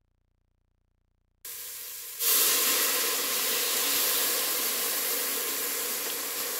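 Silence for over a second, then leeks and garlic sizzling in a steel pot: a steady frying hiss that gets louder about two seconds in.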